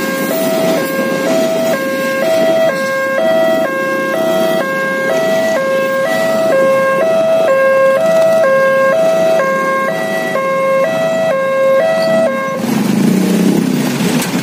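Electronic warning alarm of a railway level crossing, switching rapidly back and forth between two tones and cutting off suddenly about twelve seconds in. Underneath runs the rumble of a passing container freight train, then of motorcycles and cars moving off across the tracks.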